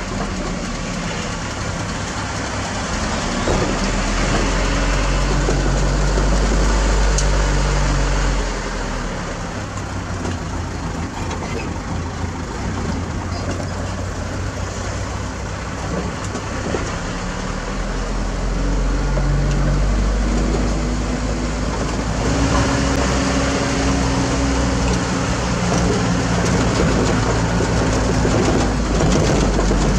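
Mitsubishi Fuso Canter light truck's engine running, heard from inside the cab while driving, with road noise. The engine note shifts several times: louder for a few seconds, easing off about eight seconds in, then building again past the twenty-second mark.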